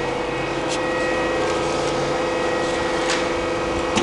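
Mazak Quick Turn QT-6T CNC lathe powered up and standing ready, running with a steady two-tone mechanical hum, with a couple of faint ticks.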